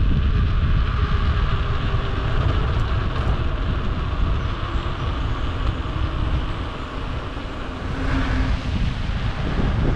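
Wind buffeting the microphone of a bike-mounted action camera while cycling uphill on a mountain road, a steady, uneven rumble.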